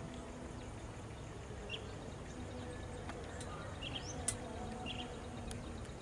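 Faint steady outdoor background noise with a few faint, short chirps from distant birds, some of them rising, and a couple of sharp clicks around the middle.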